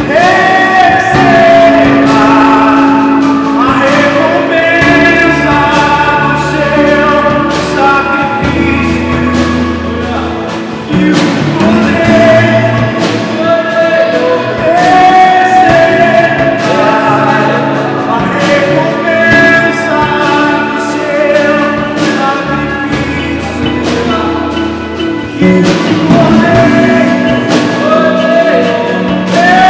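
Live worship band playing a gospel praise song: singing with held, sliding notes over keyboard, bass and drums.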